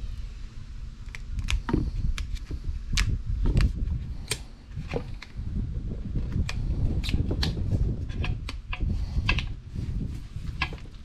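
Irregular sharp clicks and taps of a small hand tool and metal parts being handled against a license plate frame on a workbench, over a low rumble.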